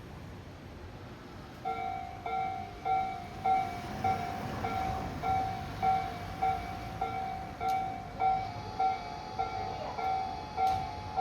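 Japanese railway level-crossing alarm starts ringing about two seconds in: an electronic ding repeating about one and a half to two times a second. From about two-thirds of the way through, a second, slightly higher-pitched alarm overlaps it, warning that a train is approaching.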